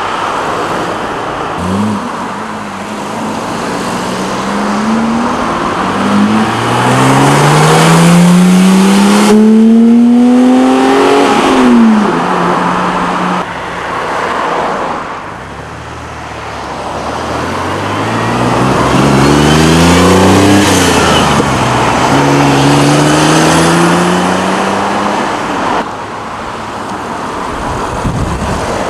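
Supercar engines accelerating hard as cars pull away, the engine note climbing and dropping sharply at each upshift. There are two loud runs, one ending about 11 seconds in and the other from about 18 seconds on, with lower idling and rolling engine noise between them.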